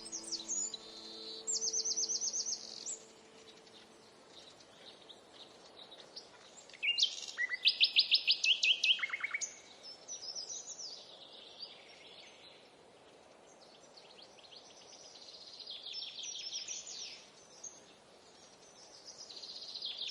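A songbird singing rapid, high trills in several bouts a few seconds apart. The loudest bout, about seven to nine seconds in, steps down in pitch.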